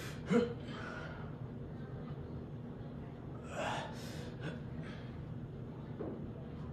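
Heavy, forceful breathing of a man doing barbell back squats: a few sharp gasping breaths, the loudest about a third of a second in and another around three and a half seconds in, over a steady low hum.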